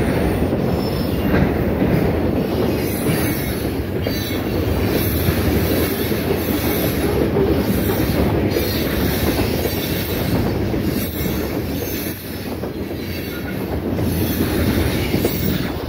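Freight cars of a passing train rolling by at close range, their steel wheels on the rails making a steady, loud rolling noise.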